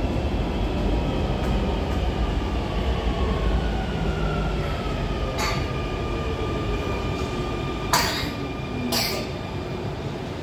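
Barcelona Metro Line 10 train heard from inside the car as it slows into a station: a steady rumble with a thin motor whine that slowly falls in pitch. Three sharp clacks come in the second half, the middle one the loudest.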